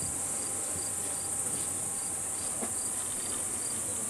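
Chorus of meadow insects stridulating: a steady high-pitched hiss, with a short chirp repeating about twice a second.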